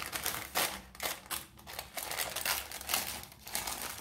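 Butter paper crinkling in irregular bursts as hands fold it around a chapati wrap.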